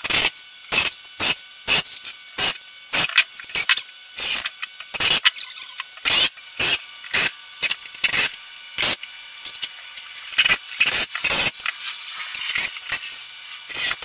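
Cordless drill driving wood screws into the cabinet frame in a rapid series of short bursts, about two a second.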